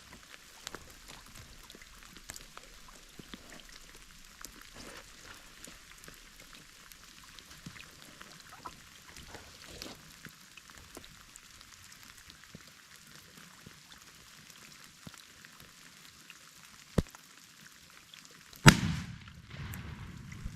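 Light rain dripping in scattered small ticks, then a single sharp click, and about a second and a half later one very loud shotgun blast with a low rumbling echo after it.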